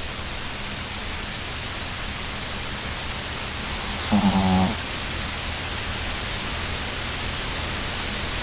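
A sleeping puppy snoring: one short, pitched snore about four seconds in, over a steady background hiss.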